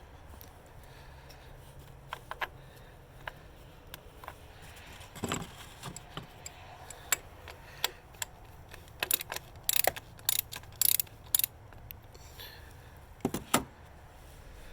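Metal tools clinking and rattling: a 21 mm socket and wrench being handled and fitted onto a PCV valve, with scattered clicks and a flurry of sharp metallic clinks in the second half.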